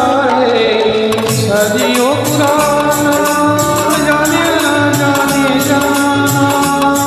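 Karaoke backing track of a Hindi film song playing an instrumental stretch: a melody line that holds and bends over a steady percussion beat and a pulsing bass.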